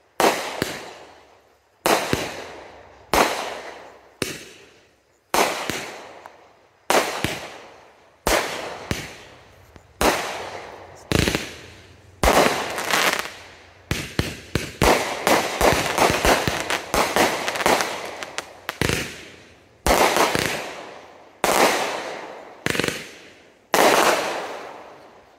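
A 66-shot consumer firework cake firing, sharp bangs about every one to one and a half seconds, each ringing out for about a second. About halfway through comes a denser run of rapid shots and crackling pops, then single bangs again.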